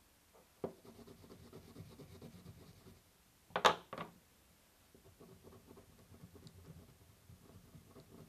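Wax crayon rubbing on paper in quick short strokes, with a small click under a second in and a sharp clack about three and a half seconds in as a crayon is put down or picked up on the table.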